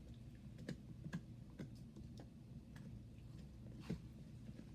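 Butter slime made with Daiso clay being spread, giving faint, irregular soft clicks about twice a second.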